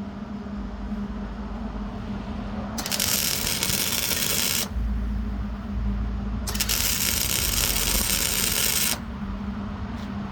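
Arc welding on a dumpster trailer's broken hinge: two welding runs of loud hiss, each about two seconds long, the first starting about three seconds in and the second about six and a half seconds in, over a steady low hum.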